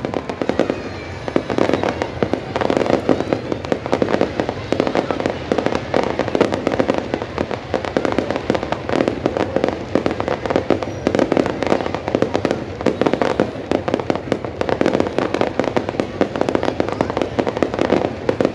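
Fireworks display: a dense, continuous barrage of bangs and crackles, one burst after another with no pause.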